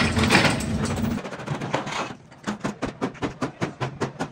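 An engine running steadily cuts off about a second in. After a short pause, rapid, evenly spaced knocks follow at about five a second.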